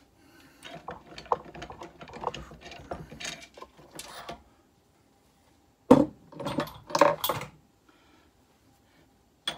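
Metal tools being handled at a mini metal lathe: light clinks and rattles, then a short cluster of sharp, loud metallic knocks a little past the middle.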